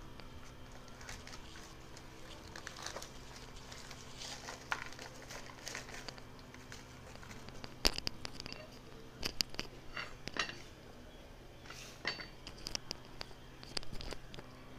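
Black plastic nursery bag crinkling and rustling as a peace lily is worked out of it, with scattered sharp clicks and taps, the loudest about eight seconds in.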